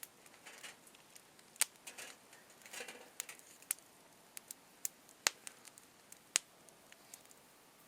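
Wood campfire crackling: scattered sharp pops at irregular intervals, with a brief rustle about three seconds in.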